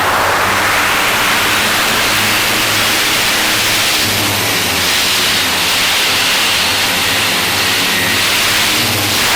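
Tarot 650 multirotor's motors and propellers running in flight, heard from the onboard camera as a loud, steady rush of prop noise and wind, with a low hum that swells and fades.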